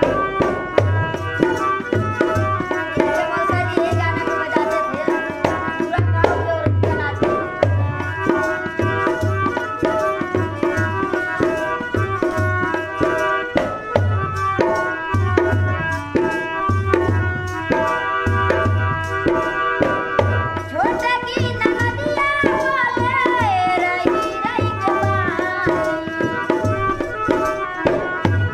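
Harmonium holding steady chords over a dholak hand drum beating a Bhojpuri folk rhythm. About three quarters of the way through, a woman's voice comes in singing a drawn-out, wavering line.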